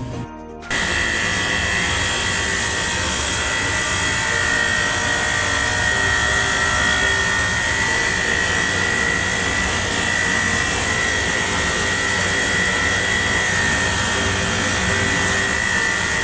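Loud, steady machine running noise with a constant high whine, starting abruptly about a second in.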